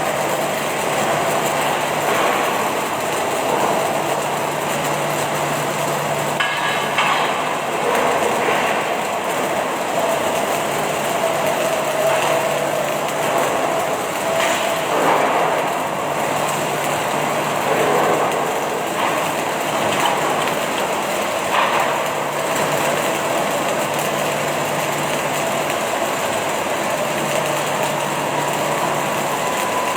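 Automatic welding machine running in a factory: a steady, loud crackling hiss, with a low hum that comes and goes every few seconds and occasional sharp knocks.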